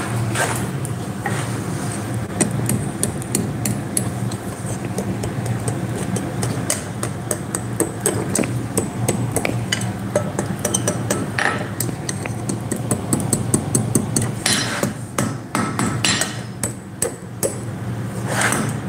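Blacksmith's hand hammer striking a small hot iron piece held in tongs on an anvil: a run of quick, light blows at uneven spacing, with a denser, harder flurry near the end, bending the curves of a forged pendant.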